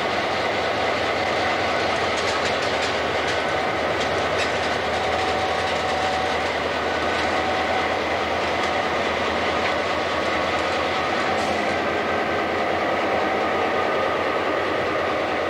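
Algoma Central F-unit diesel locomotive running at idle inside an engine house: a steady, loud machinery drone with a thin, constant high whine over it.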